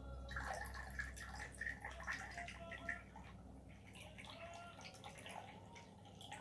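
Whisky pouring in a thin stream from a bottle's metal pour spout into a stainless steel jigger: a faint trickling and splashing in the metal cup, livelier for the first three seconds and softer after.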